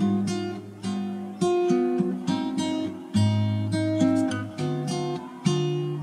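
Background music: an acoustic guitar strumming chords, each chord struck sharply and then fading.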